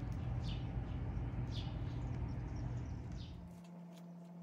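A bird chirping, three short falling chirps about a second apart, over a steady low outdoor rumble. About three and a half seconds in the rumble cuts off abruptly, leaving a quieter steady low hum with faint ticking.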